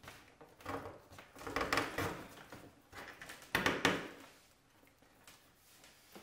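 Split spruce root being pulled by hand through stitching holes in birch bark, sewing a bark panel seam: a few drawn-out rustling, scraping pulls, the loudest about three and a half seconds in.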